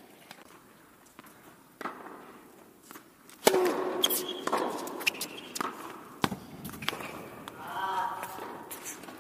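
Tennis point: a ball bounce, then about three and a half seconds in a racket strikes the serve hard, followed by several more racket hits and ball bounces as the rally goes on. A player's voice sounds briefly with the serve and again near the end.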